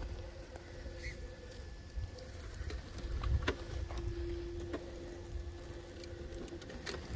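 Brushless motor of a Redcat Gen8 RC crawler (Hobbywing Xerun Axe system) whining steadily at crawling speed as the truck pushes through grass and brush, the whine briefly stronger about four seconds in. Scattered light ticks and rustle of stems against the truck, over a low rumble.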